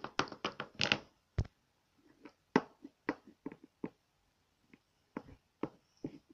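Clicks and taps of a plastic Littlest Pet Shop figure being handled and set down on a tabletop: a quick run of taps at the start, then single taps every half second or so.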